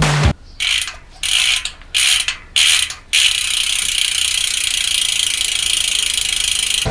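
Bicycle freehub pawls clicking as the rear wheel is spun by hand: four short spins, then a fast, continuous ratcheting buzz as the wheel freewheels from about three seconds in.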